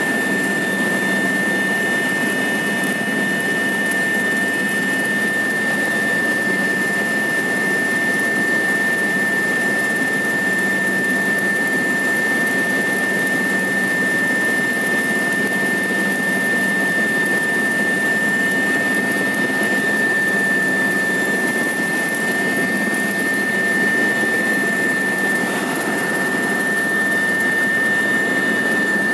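Helicopter in flight, heard from inside the cabin: a loud, steady engine drone with a high, steady whine on top.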